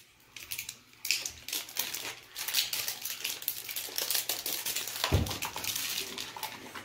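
Crinkling and crackling of plastic wrap being picked and peeled off a toy surprise egg, in quick irregular crackles, with one low thump about five seconds in.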